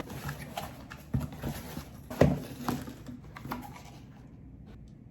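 A few irregular knocks and thumps, the loudest about two seconds in, fading to a low background near the end.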